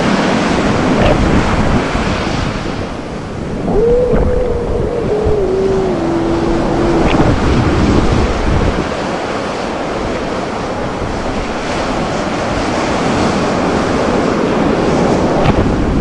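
Ocean surf breaking and washing on a beach, a continuous rushing with surges as waves come in, with wind buffeting the microphone. About four seconds in, a faint pitched tone sounds and falls in small steps over about three seconds.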